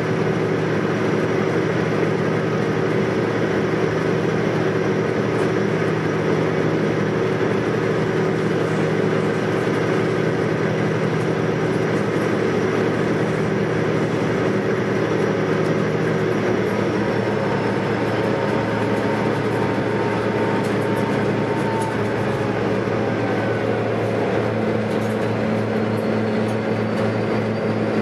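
Engine drone of the Austal high-speed ferry Gao Ming under way, heard inside the passenger cabin: a steady hum with several held tones. About two-thirds through, the mix of tones shifts. Some drop away, and near the end a new lower hum comes in with a faint rising whine.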